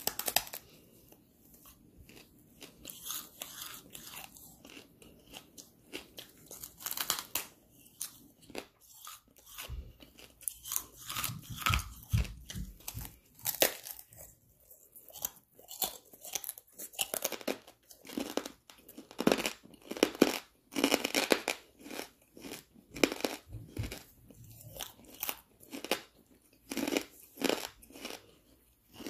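Close-miked biting and chewing of a hard lump of charcoal: sharp, irregular crunches as it breaks between the teeth, loudest about two-thirds of the way through.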